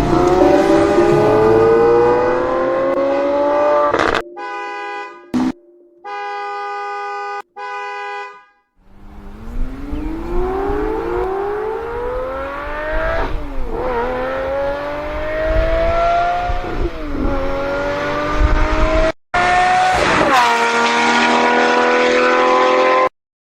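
Sports car engine accelerating hard, its pitch rising and dropping back at each upshift. About four seconds in, a car horn sounds in a few blasts. The engine revs up again, and the sound cuts off suddenly near the end.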